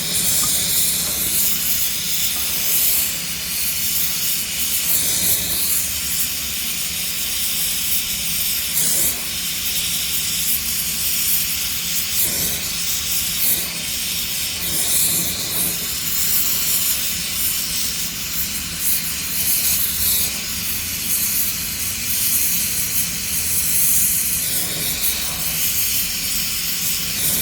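Electric arc welding on thin galvanized sheet steel: a steady crackling hiss from the arc that eases briefly every few seconds.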